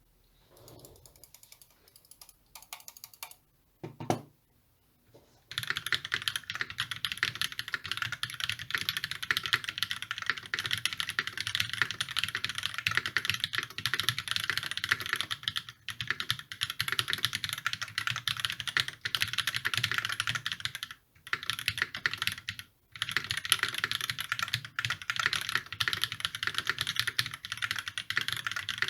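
Fast typing on an E8.5 custom mechanical keyboard with a brass plate, YOK Panda tactile switches lubed with Tribosys 3204, Everglide stabilizers and GMK keycaps: a dense run of keystroke clacks with a few short pauses. Before it, a few faint clicks and a single thump about four seconds in; steady typing starts about five and a half seconds in.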